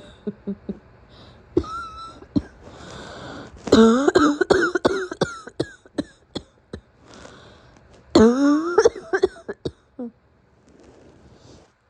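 A sick woman's morning coughing fit: a short cough about two seconds in, then two long bouts of rapid, harsh coughs, the first about four seconds in and the second about eight seconds in.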